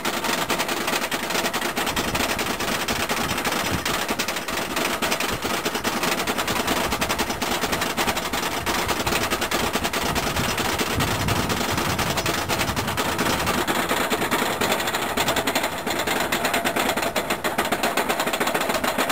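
Flying roller coaster train climbing the chain lift hill: a rapid, even clatter of clicks from the lift chain and anti-rollback ratchet.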